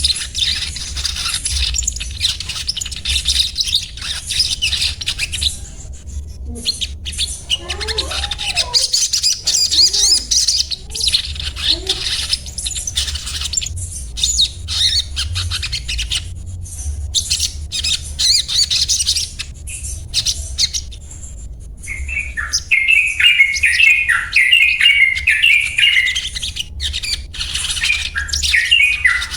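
Little spiderhunter (sogok ontong) calling: fast, high-pitched twittering chatter, then about 22 s in a quick run of repeated sharp 'cuet' notes at a lower pitch.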